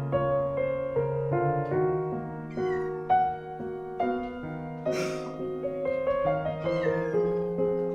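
Solo piano music playing throughout, with a calico cat meowing over it twice: once about two and a half seconds in, and once near the end with a falling pitch.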